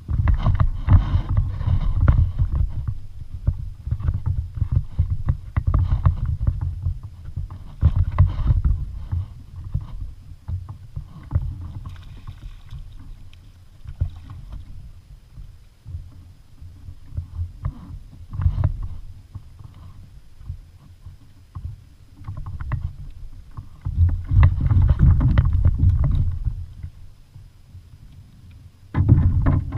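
Sounds of a fishing kayak on the water: low rumbling bumps and water noise that come in uneven spells a few seconds long.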